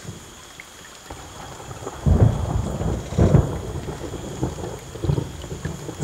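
Thunder rumbling from an approaching storm. It comes in about two seconds in and swells in several rolls.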